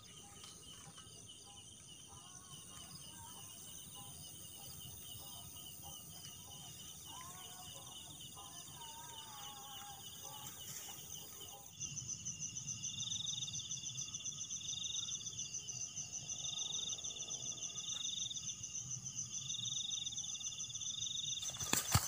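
Night insects chirring in steady pulsed trills, with a second, higher pulsing insect coming in about halfway through. Rustling in grass grows louder from about halfway, and there is a sudden sharp sound near the end.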